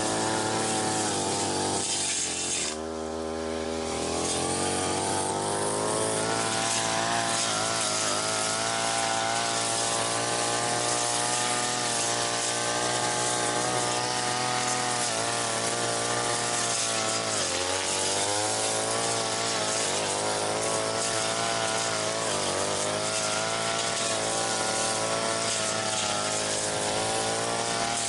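Brush cutter engine running at high throttle while its blade cuts weeds; about three seconds in the engine drops briefly to a lower speed, then revs back up, and its note sags for a moment again past the middle.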